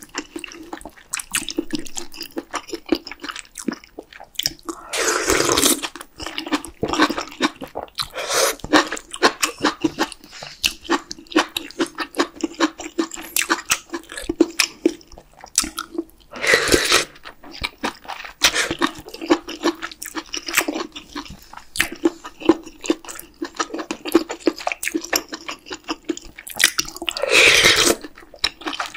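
Close-miked eating of spicy beef-brisket soup with noodles: steady wet chewing and smacking, broken by four long slurps of noodles and broth from a wooden spoon.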